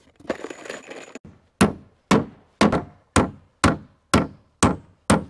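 A hammer driving a 16-penny coated sinker nail into a wooden board, eight sharp even blows about two a second, each with a short ring.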